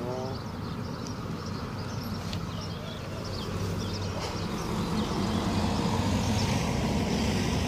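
Motor yacht engines running with a low, steady drone that grows louder about halfway through as a boat passes.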